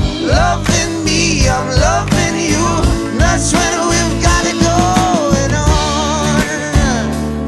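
Soul-pop song playing: a full band with a steady beat, and a wavering melody line over it.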